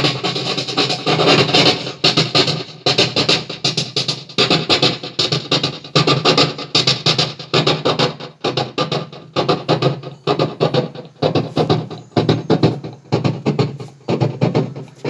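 A man's voice imitating a steam locomotive chugging, amplified through a handheld microphone. Rhythmic chuffs that run close together at first and then settle into separate beats about two a second.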